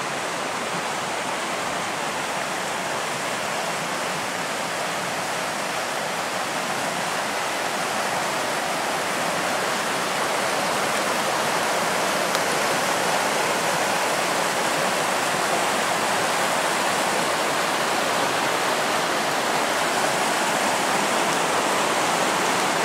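Rapids of a mountain river in spate, swollen by heavy rain, rushing over rocks: a steady wash of white water that grows gradually louder about halfway through.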